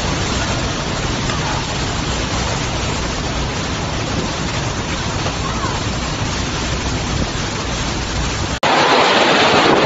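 Tropical cyclone wind and heavy rain: a steady, loud rushing noise of gale-force wind and driving rain. About a second before the end it cuts abruptly to a louder, harsher rush.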